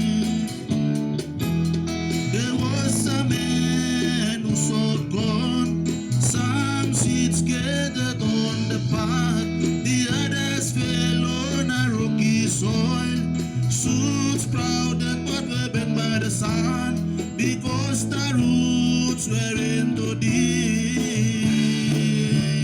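Gospel band music: guitar over a steady bass line, with singing voices that come and go.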